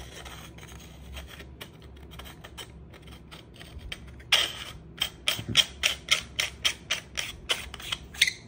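A run of sharp clicks and taps, about four a second, starting about four seconds in, from hard plastic and metal items being handled. Fainter taps come before it.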